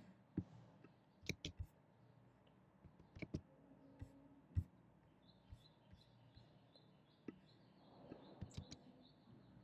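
Faint, irregular clicks of a computer mouse and keyboard, about a dozen scattered over several seconds, as text is selected, copied and pasted.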